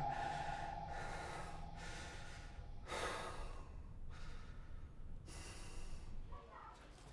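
A man breathing heavily through nose and mouth, a few long rushing breaths in and out.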